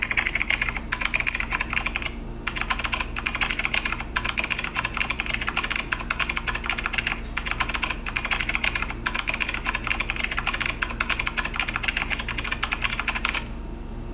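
Keyboard typing sound effect: a fast run of key clicks that pauses briefly about two seconds in and stops shortly before the end.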